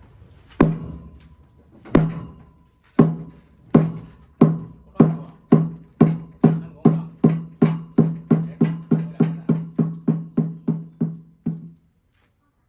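Pong, the hollow wooden log drum of a Thai temple, struck over and over, each blow a low ringing knock. The blows speed up steadily from about one every second and a half to about three a second, then stop near the end. This is the evening pong roll that signals tomorrow is a Buddhist holy day (wan phra).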